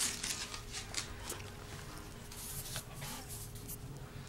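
Scratchy rustling, rubbing and clicking right at the phone's microphone as it brushes against a small long-haired dog's fur, in a cluster over the first second and again from about two and a half to nearly four seconds in.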